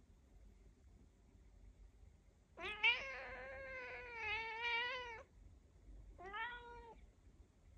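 Domestic cat meowing twice: a long, drawn-out meow with a wavering pitch, lasting over two seconds, then a short meow about a second later.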